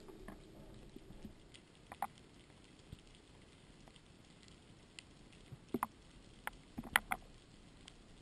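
Underwater ambience heard through a camera housing: a faint even hiss with scattered sharp clicks and ticks, a quick cluster of them about six to seven seconds in.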